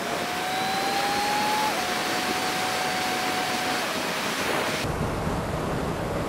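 Steady rush of wind and wet-road tyre noise on a helmet-mounted camera while riding a Suzuki Bandit motorcycle in rain, with the inline-four engine's faint note climbing slowly and dipping in pitch twice. Near the end the rush turns duller, with a low hum.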